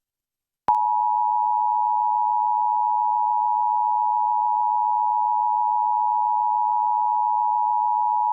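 Emergency Alert System attention signal: the steady two-tone alarm of 853 and 960 Hz sounding together, starting less than a second in after a short silence and held unbroken. It marks the start of an EAS Required Monthly Test message.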